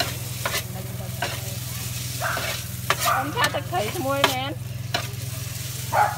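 Noodles and bean sprouts sizzling on a large flat wok while a metal spatula scrapes and clacks against the pan, turning them. A steady low hum runs underneath, and a few brief pitched, wavering sounds come through in the middle.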